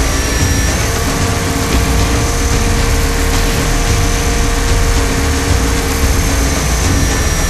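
A 500-size RC UH-60 Black Hawk scale helicopter in flight, heard from a camera on board. The drivetrain gives a steady whine held on one pitch, over a heavy low rumble of rotor wash and wind.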